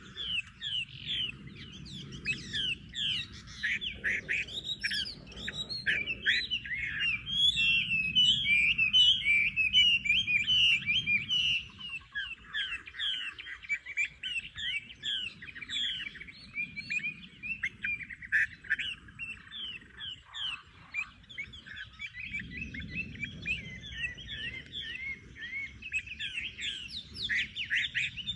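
A flock of small birds chirping and twittering continuously in a dense, overlapping chorus of short, quick calls.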